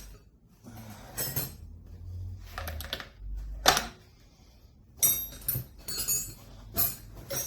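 Metal tools clicking and scraping against pool pump parts while working at a stuck mechanical seal: a run of irregular sharp clicks and scrapes, the loudest about three and a half seconds in.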